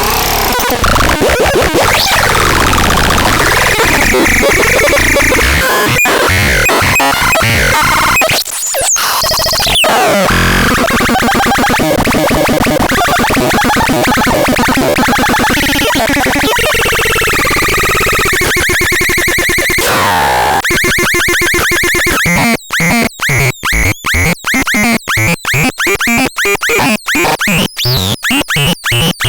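Electronic synthesizer producing a dense, noisy, warbling texture with sweeping tones. About 22 seconds in it turns into fast, rhythmically chopped pulses.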